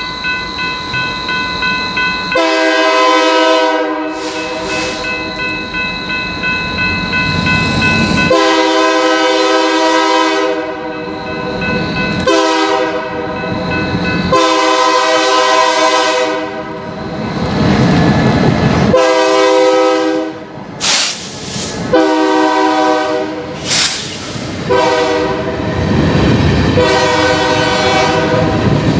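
Diesel freight locomotive's multi-chime horn sounding a series of long and shorter blasts for a grade crossing, over the ringing of the crossing signal bell at first. In the second half the rumble of the passing train grows, with freight car wheels clattering over the rail joints.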